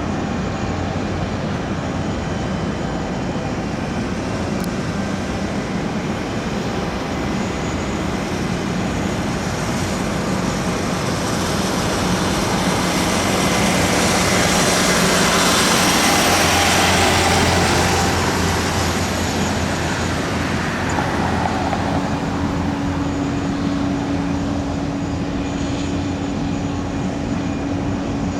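Jet airliner engine noise on an airport apron during a Boeing 787-8 pushback: a steady rush that swells loudest about halfway through and then eases. A steady droning tone joins in about two-thirds of the way through.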